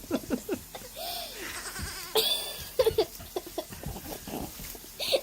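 Baby goats bleating in short calls, one rising and falling about a second in.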